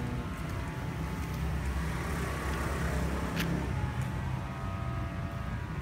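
A car passing close by: its sound swells to a peak about three seconds in and fades, over a steady low traffic rumble, with one sharp click just after the peak.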